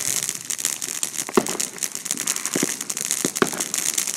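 Consumer fireworks crackling: a dense, continuous fizzing crackle with about four sharp pops, the strongest about three and a half seconds in.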